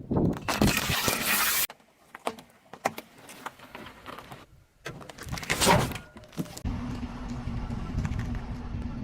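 A car's tyres rolling over and crushing objects in several short edited clips: a loud crunch that cuts off suddenly, scattered smaller cracks, and a second loud crush about five seconds in. The car's engine runs with a steady hum from about two-thirds of the way through.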